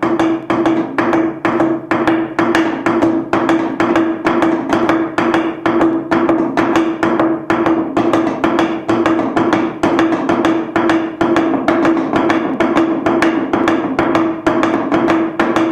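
Hollow wooden tubes of different lengths beaten upright against a wooden board in a steady, even rhythm, about three to four knocks a second, with a low steady ring sounding under the knocks.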